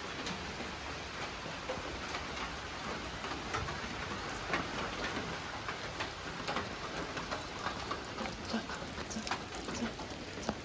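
Steady rain falling, with many separate drops ticking on surfaces throughout.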